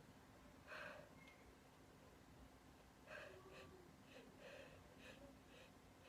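Faint breathing by a young woman: a short gasping inhale about a second in, another about three seconds in, then a few small breaths, the hitching breaths of someone trying to bring on a sneeze.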